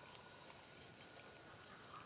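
Near silence: faint outdoor ambience with a high, rapid insect chirping, about five pulses a second, that stops about one and a half seconds in.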